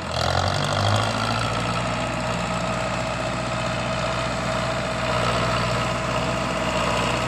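Tractor's diesel engine running steadily, a low hum with a higher drone over it.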